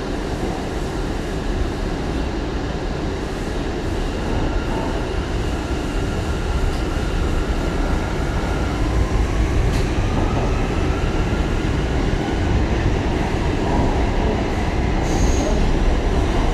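R179 subway train with Bombardier MITRAC AC propulsion running along the track: a dense, steady rumble of wheels on rail with faint tones above it, growing slowly louder. About nine seconds in, a faint tone rises in pitch.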